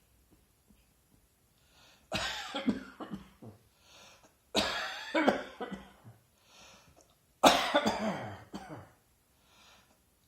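A person's dry, tickly cough: three fits, each a quick run of several sharp coughs, with a breath drawn between them. The fits start about two seconds in, and the last is the loudest.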